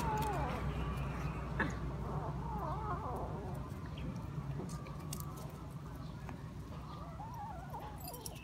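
A kitten and puppies at play giving a few short, high, wavering cries, with a steady low rumble in the background.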